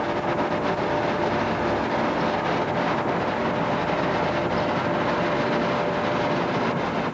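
Steady mechanical drone of construction machinery, with a constant high tone over it and a few faint clicks.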